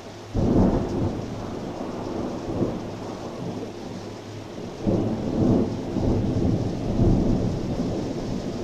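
Thunder: a sudden loud clap about a third of a second in, then a long rolling rumble that swells again about five seconds in.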